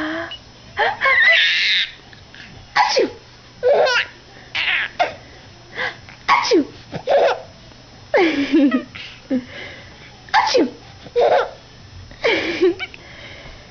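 A baby laughing hard in short repeated bursts, about one a second, in reaction to his mother's sneezes, which are heard now and then between the laughs.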